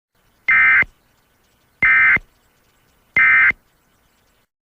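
Emergency Alert System end-of-message signal: three short, identical bursts of buzzing digital data tone, about a second and a half apart, marking the end of the alert.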